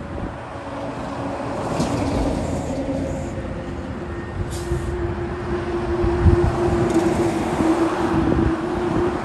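Conventional (Type C) school buses driving past, their engines running with a steady whine that grows louder from about halfway through as a bus draws near. Two short hisses, about two seconds and about four and a half seconds in.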